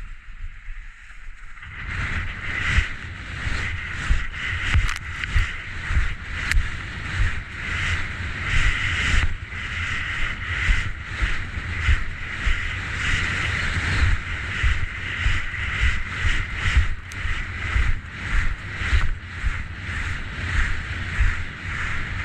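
Skis scraping and carving down a mogul line, starting about two seconds in, with a hiss that swells with each turn about once a second. Wind buffets the microphone with a low rumble and thumps.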